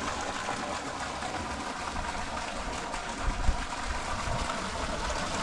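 Pumped water gushing steadily into a fishpond, with a couple of short low bumps a little past three seconds in.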